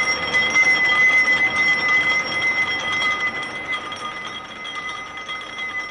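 Machine-shop machinery running, a steady high ringing whine of several pitches over a dense mechanical hum, easing off a little in its second half.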